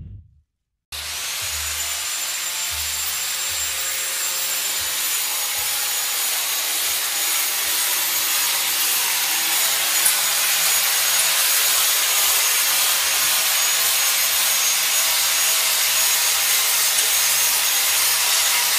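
Heavy grinder grinding the inner back of an aluminum aftermarket wheel rim, taking off metal to clear the brake calipers. It starts about a second in and runs on as a steady hissing grind with a high whine.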